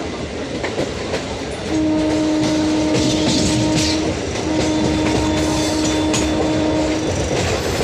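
Train horn sounding two long steady blasts, each about two and a half seconds with a short gap between them, over the continuous rumble and wheel clatter of a passing train.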